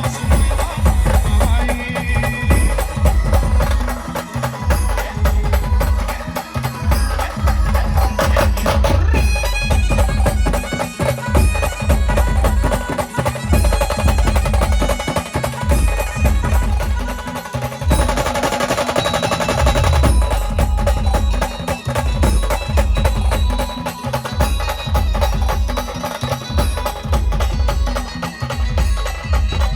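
Indian brass band playing an instrumental stretch of a Marathi devotional song, with a heavy, steady drum beat under melodic horn lines and no singing.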